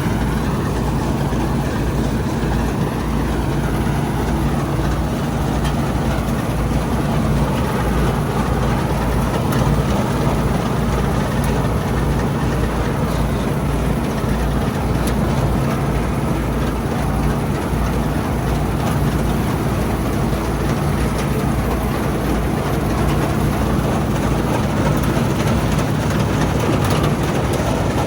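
Old Bizon combine harvester running steadily: a heavy engine drone under a constant broad rush of machinery noise, with no change in pace.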